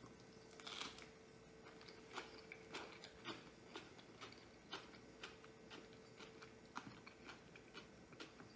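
Faint close-up chewing of a sushi roll: soft, scattered mouth clicks and smacks, a few a second at times, over a faint steady hum.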